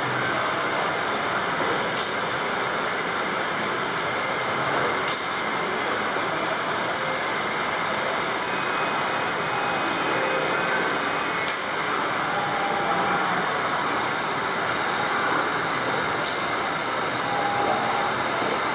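Pond aerator churning the water of a shrimp-fishing pond: a steady rushing hiss with a few faint clicks.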